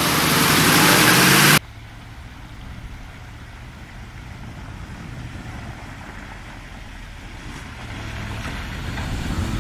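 Loud heavy truck engine noise that cuts off suddenly about a second and a half in. It gives way to a distant truck engine's low rumble as a mobile crane truck fords a shallow river, growing slowly louder as it approaches.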